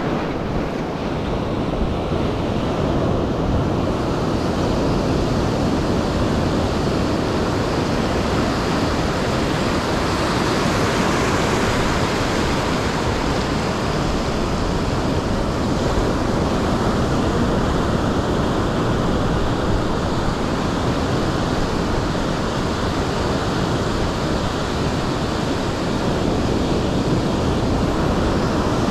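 Ocean surf breaking and washing up over the sand in a steady rush.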